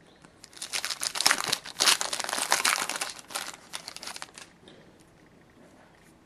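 Trading-card pack wrapper being torn open and crinkled by hand: a burst of crackly rustling lasting about four seconds, which dies away near the end.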